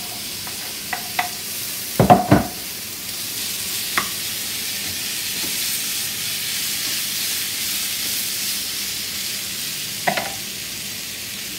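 Rice and oil sizzling steadily in a frying pan as chopped tomato, onion and green chile go in on top. A wooden spoon knocks and scrapes against the cutting board and pan a few times, loudest about two seconds in.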